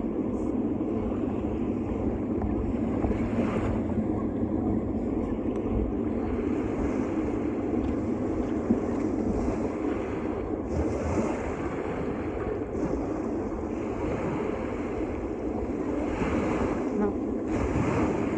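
Steady rush of wind and surf, with gusts swelling now and then and buffeting the microphone.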